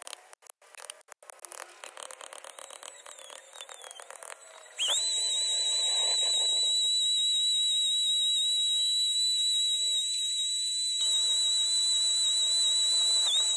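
Quick light scraping and tapping of tool work on wood. About five seconds in, a small high-speed power tool spins up to a steady, high-pitched whine, runs for about nine seconds and winds down at the end.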